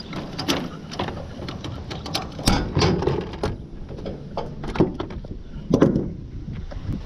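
Stihl FS 55 R string trimmer being handled on a wooden trailer deck, engine not running: a series of irregular clicks, knocks and rattles of plastic and metal parts, the loudest about two and a half seconds in and near the end.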